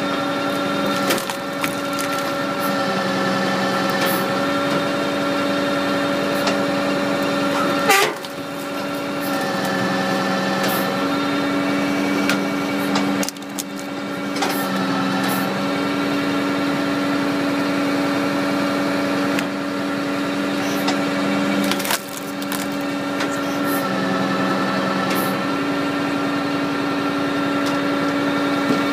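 Stanley Logger firewood processor at work: its engine runs steadily, its note shifting now and then, while the guillotine splits hardwood logs with sharp wood cracks and splintering. The loudest cracks come about 8 seconds in, again near 13 seconds and near 22 seconds.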